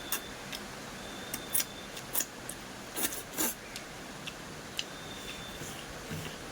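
Close-up eating sounds: irregular sharp clicks and crunches of chewing and mouth smacks, with a cluster of louder ones around the middle.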